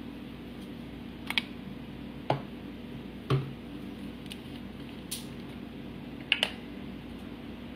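Hard plastic breast pump parts being handled and fitted together: a handful of short, sharp clicks and taps, roughly a second apart, over a steady low hum.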